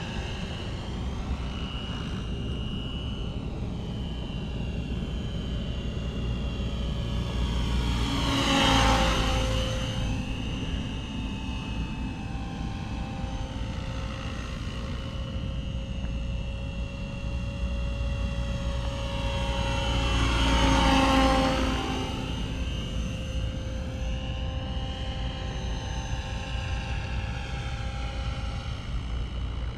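Align T-Rex 700 RC helicopter in a Bell Jet Ranger scale body flying: a steady whine of rotors and drivetrain. It swells louder and sweeps as the helicopter passes close twice, about 9 seconds and 21 seconds in.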